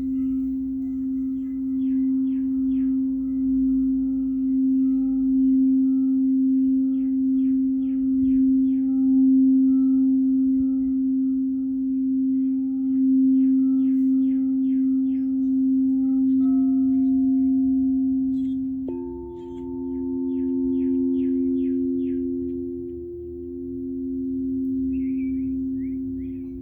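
Singing bowls ringing in a long, steady hum that swells and fades in slow waves. A second, higher bowl comes in suddenly about two-thirds of the way through. Short bird trills sound over them.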